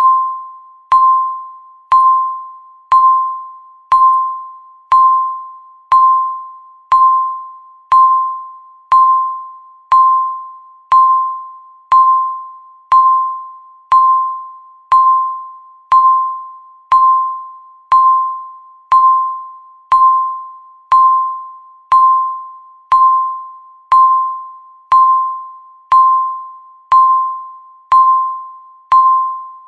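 Countdown timer's electronic beep sounding once every second, each one a single mid-pitched tone that starts sharply and fades away before the next.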